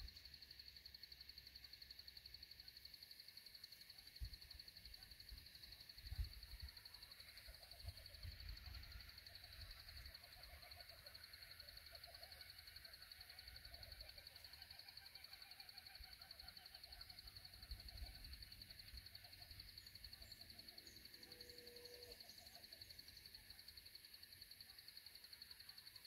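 Near silence: faint evening bush ambience, with a steady high-pitched trill throughout and a few faint distant calls in the middle. A few soft low bumps, like wind or handling on the microphone.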